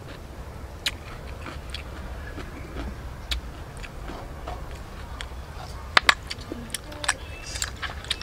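Scattered small clicks and taps of cooked snail shells being handled and picked at, and a metal spoon against a steel tray, with two sharp clicks about six seconds in, over a low steady rumble.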